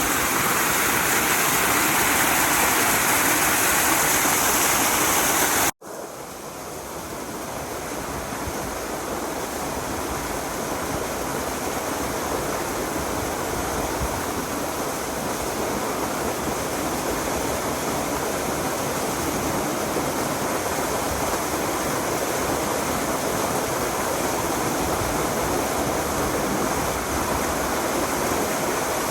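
Rushing water of a mountain stream running over rocks. About six seconds in it cuts out for an instant and comes back quieter, then slowly grows louder again.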